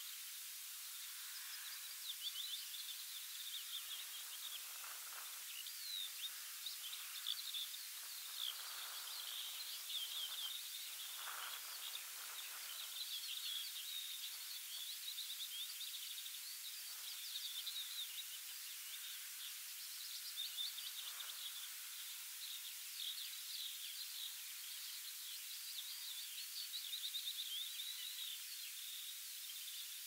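Small songbirds chirping and trilling almost without pause over a steady hiss of open-air ambience, with a few soft low swells of sound.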